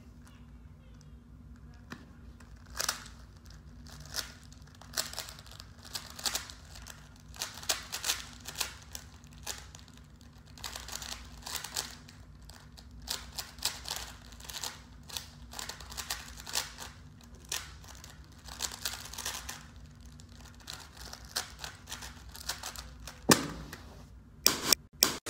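A plastic 3x3 puzzle cube being turned rapidly by hand: an uneven run of quick clicks and clacks from the layers as they twist. Near the end, a louder knock and a couple of sharp hits as the solved cube is set down.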